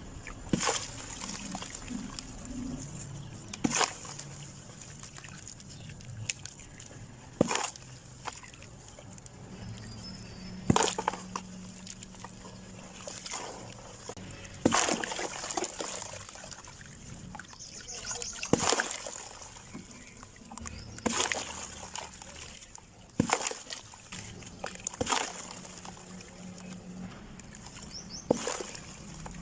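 Dry clumps of sand being crushed and crumbled, each a sharp crunch followed by a short trickle of falling grains, about every two to three seconds.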